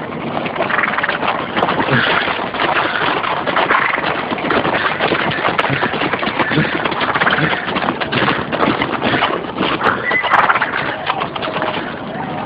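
Horses galloping and neighing, a dense clatter of hooves.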